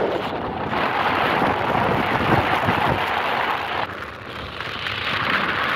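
Wind rushing over the microphone on a moving Minsk X250 motorcycle, with the bike's engine running underneath; the noise eases somewhat about two-thirds of the way through.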